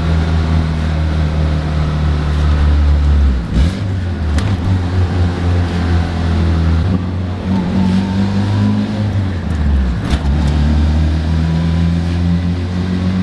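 Turbocharged Honda Civic's B-series four-cylinder engine heard from inside the car while driving, running steadily under load. The engine note drops out briefly twice, about three and a half and ten seconds in, like gear shifts, with sharp clicks around each.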